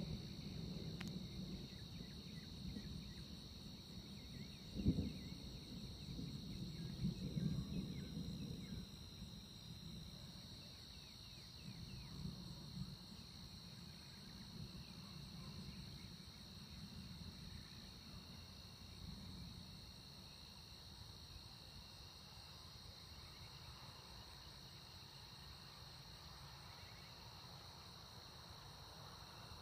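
Night insects trilling in a steady high chorus. Distant thunder rumbles low through the first dozen seconds, with one sharper, louder clap about five seconds in, then dies away.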